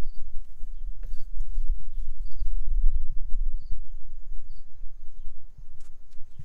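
Low, uneven rumble of wind buffeting the microphone outdoors, with a faint high chirp repeating about once a second through the first few seconds.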